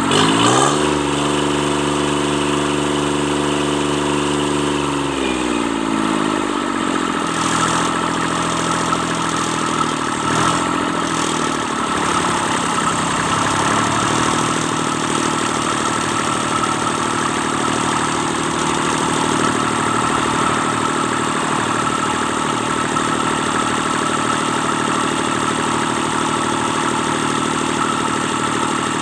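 Kubota D650 three-cylinder diesel engine revved up, held at higher speed for about five seconds, then dropped back to a steady idle.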